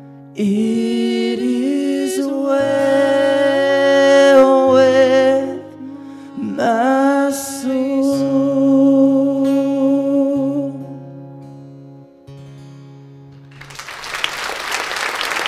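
A man and a woman singing a slow song to a strummed acoustic guitar; the song ends on a held guitar chord that fades away. Near the end the audience breaks into applause.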